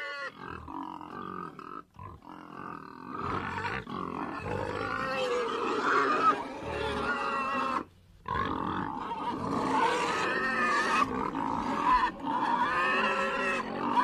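Domestic pigs squealing and grunting in a near-continuous run of calls, growing louder after the first few seconds, with a short break about eight seconds in.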